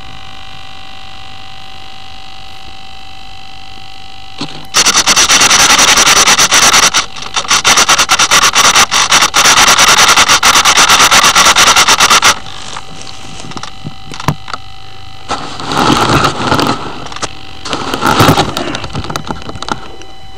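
Loud rustling and scraping against the onboard camera microphone of a downed RC model plane lying in tall grass. The scraping starts about five seconds in and runs for about seven seconds, then comes back in shorter bursts near the end. Underneath is a faint steady hiss with a thin electronic whine, and no motor is running.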